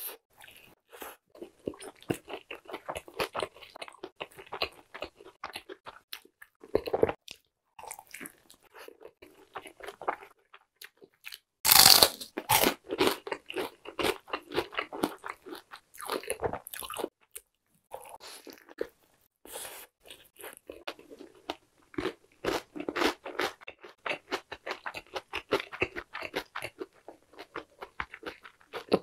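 Biting and chewing a fried chicken burger: crisp crunching of the breaded fillet in bouts with short pauses. The loudest crunch, a big bite, comes about twelve seconds in.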